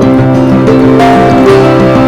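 Background music led by a plucked, strummed guitar, loud and steady, with notes changing every fraction of a second.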